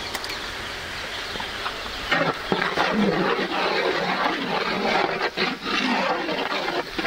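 Ginger-garlic paste sizzling in hot oil with onions in a large metal cooking pot, a steady hiss at first. From about two seconds in, a big metal spatula stirs and scrapes against the pot, and the sound grows louder and rougher, with a few knocks.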